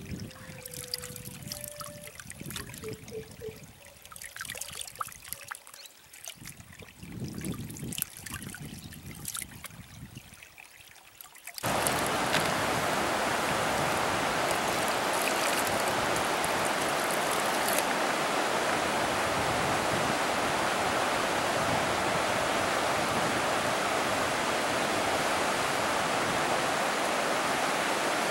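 Small splashes and trickling of water as hands scoop from a shallow rocky stream. About twelve seconds in, the sound switches abruptly to the steady rush of a river pouring over rapids.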